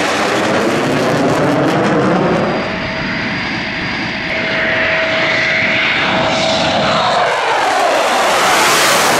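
RAF Eurofighter Typhoon jet passing low, its twin EJ200 turbofans giving a loud, steady roar. A steady whine runs through the middle, and a brighter, rising rush comes near the end.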